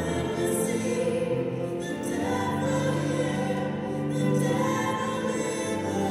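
Church choir singing together with a woman's solo voice at the microphone.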